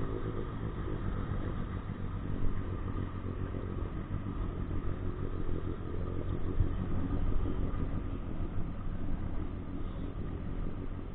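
An engine running steadily: a low hum with a fainter, higher steady tone over a rough rumble.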